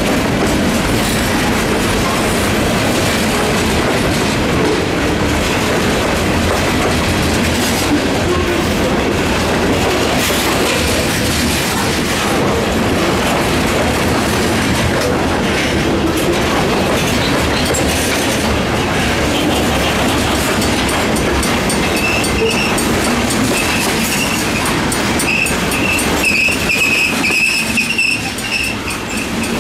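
Freight train cars, covered hoppers then gondolas, rolling past close by in a steady rumble. From about three-quarters of the way through, a high wheel squeal comes and goes.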